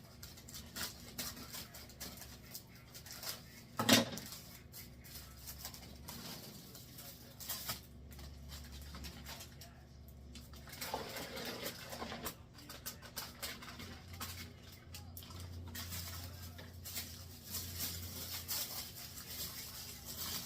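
Crinkling and rustling of a plastic bagged salad kit and its packets being handled and opened, with scattered small clicks and one sharp knock about four seconds in.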